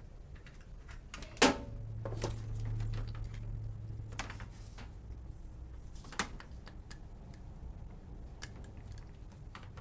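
Scattered sharp clicks and knocks of a thin extension cord and plug being handled and connected, with a low electrical hum that swells for about two seconds after the first click.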